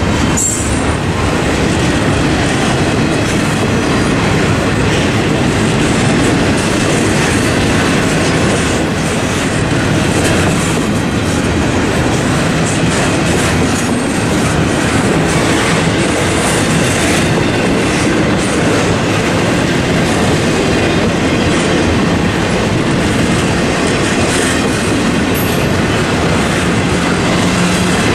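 Double-stack intermodal freight cars rolling past at close range: a steady, loud rumble and clatter of steel wheels on the rails.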